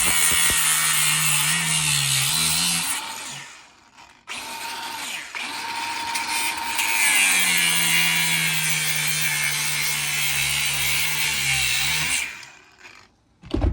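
Angle grinder cutting into a scrap washing machine motor: it runs for about three seconds, stops for a moment, then cuts again for about eight seconds before stopping near the end.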